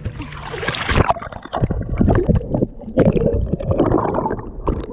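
Water splashing as the action camera is pushed under the surface, then muffled, choppy underwater gurgling and sloshing heard through the submerged camera while a released jack swims off.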